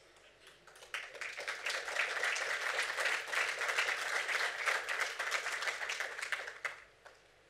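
Audience applauding: many people clapping, starting about a second in and dying away near the end.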